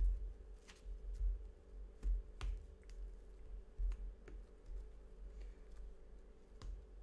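Plastic rings of a cloth coffee filter holder being handled and pressed together on a cutting mat: irregular light clicks and taps, with low thuds from the hands bumping the table.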